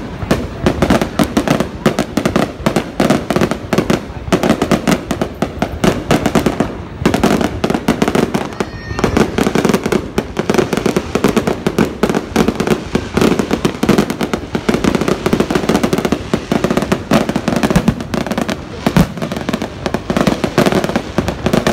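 Aerial fireworks bursting in a rapid, continuous barrage: many loud bangs a second, crowding on one another without a break.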